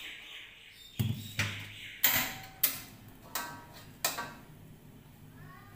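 A run of sharp metallic clanks and knocks, about six in three seconds, some with a short ring, as a steel wok is set on a gas stove and a spatula knocks in it.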